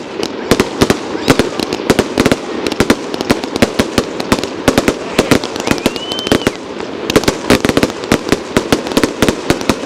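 Aerial fireworks going off in rapid succession: a dense run of bangs and crackles, several a second. A short rising whistle comes about six seconds in.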